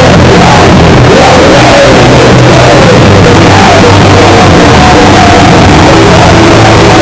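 Street punk band playing live, the recording loud and saturated throughout.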